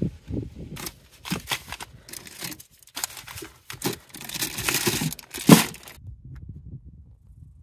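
Plastic food bags crinkling and rustling as they are handled and pulled out of a fridge, with a rapid run of small clicks and knocks and one sharp knock about five and a half seconds in; the sound drops away to a faint background about six seconds in.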